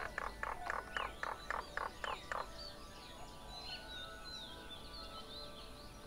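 Birds chirping and whistling, with a run of about nine quick, harsh call notes at around four a second in the first two and a half seconds.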